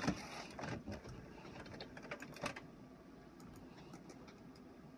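Irregular clicks and knocks, dense in the first two and a half seconds, then a few faint scattered ticks.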